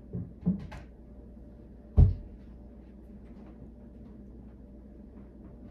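Two light knocks, then one heavy, dull thump about two seconds in, over quiet room tone.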